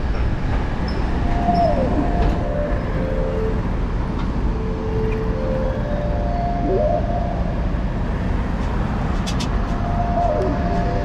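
Steady low rumble of city street traffic, with faint music of slow held notes, each phrase ending in a downward slide, about three times.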